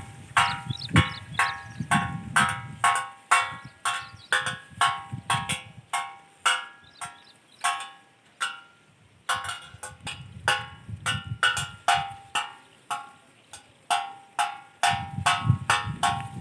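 Crop-protector bird and monkey scarer sounding a rapid, even train of ringing metallic strikes, about two a second. It pauses for about a second and a half a little past the middle, then resumes.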